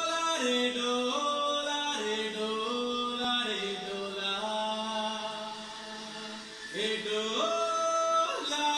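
Bollywood film song's vocal opening played back: a voice holding long, ornamented notes that step up and down in pitch, with no beat, a new phrase rising about seven seconds in.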